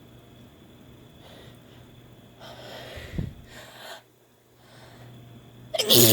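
A woman's noisy breaths in, with a low thump midway, as chhinkni sneezing snuff takes effect. Then a loud sneeze bursts out near the end.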